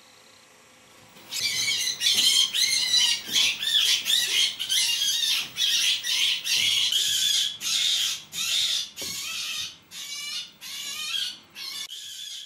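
A rabbit screaming in distress: a rapid series of high-pitched, wavering shrieks, about two a second, starting just over a second in and getting weaker over the last few seconds.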